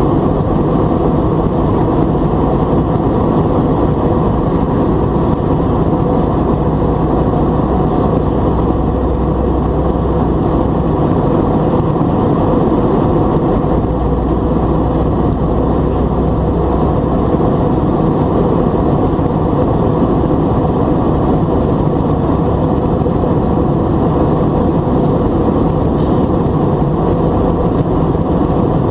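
Steady cabin noise of an Airbus A320 in climb, heard from a window seat over the wing: the CFM56 turbofans at climb power and the rush of air along the fuselage, mostly low in pitch and without change.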